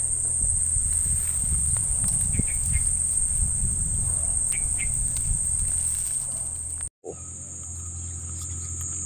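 Insects shrilling in one steady high-pitched drone over a low rumble. The sound cuts out for an instant about seven seconds in and comes back a little lower in pitch.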